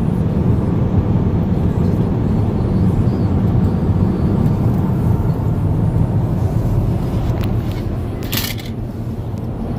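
Steady low rumble of a car on the move, heard from inside the cabin: engine and tyre noise on the road. A short burst of noise cuts in near the end.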